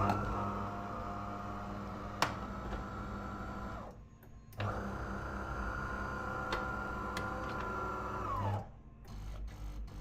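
De'Longhi Rivelia bean-to-cup coffee machine brewing an Americano: a steady mechanical hum in two spells of about four seconds each, with a short break between them and a click about two seconds in. The second spell winds down in pitch as it stops.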